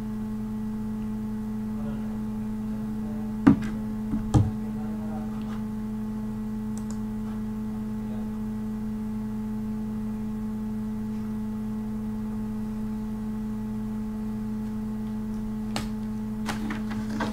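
A steady low hum with fainter overtones, and two sharp clicks about three and a half and four and a half seconds in, then a few fainter clicks near the end.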